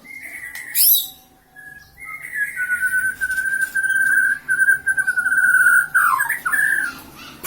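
A songbird calling: a short sharp sweeping call, then a long wavering, trilled whistle held at one pitch for about four seconds, ending in quick glides down and back up.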